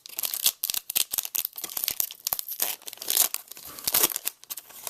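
A foil Yu-Gi-Oh booster pack being torn open by hand: quick, irregular rips and crinkles of the wrapper.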